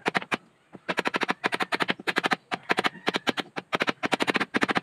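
Claw hammer tapping nails into wood in quick runs of several strikes a second, with short pauses between runs, fastening wooden molding strips onto plywood boat panels.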